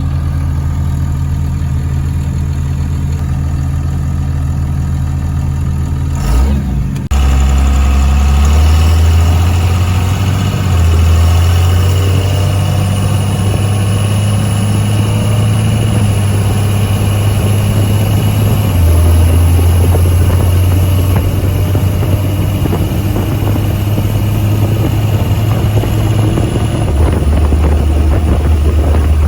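5.9 Cummins diesel engine running at a steady idle, then after a short clunk about six seconds in it pulls harder and louder. Its low note steps several times as the truck drives, with a thin high whine over the middle stretch.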